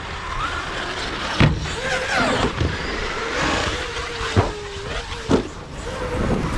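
Electric RC monster truck's brushless motor whining, its pitch rising and falling as the throttle is worked, with three sharp knocks.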